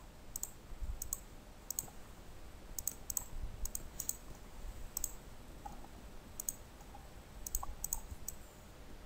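Computer mouse button clicks, faint and irregular, some in quick pairs.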